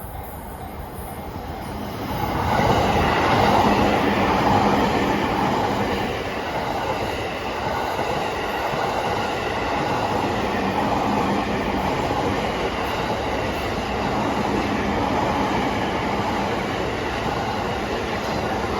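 A train passing close by on the rails. The sound builds over the first couple of seconds, then stays loud and steady as the cars run past.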